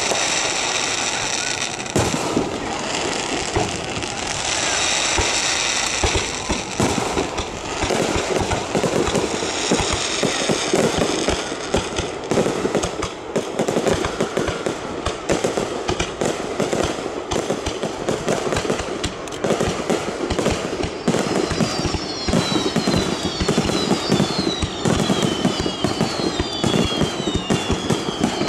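Aerial fireworks display: a rapid, continuous barrage of shell bursts with bangs and crackling. Repeated high falling whistles come in over the last several seconds.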